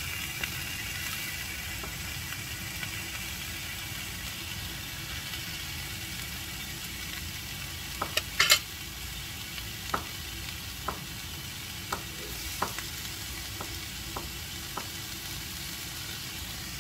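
Sausages sizzling as they fry in a pan: a steady hiss, with scattered sharp pops from about halfway through, the loudest a crackle near the middle.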